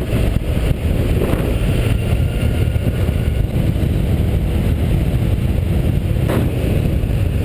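Motorcycle engine running steadily on the move, under a rush of wind on the rider's microphone, with a short click about six seconds in.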